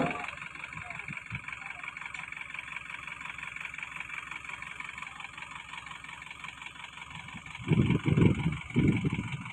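Heavy diesel machinery, most likely the mobile crane's engine, idling steadily with a steady high whine over it. Near the end there are two loud, low rumbles, each lasting about a second.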